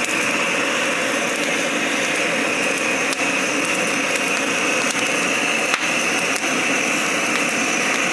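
Gas burner of a hand-cranked drum corn roaster running with a steady rushing flame noise, with a few light clicks.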